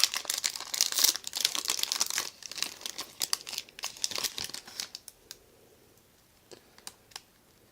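Trading-card pack wrapper being torn open and crinkled by hand for about five seconds, followed by a few soft clicks near the end.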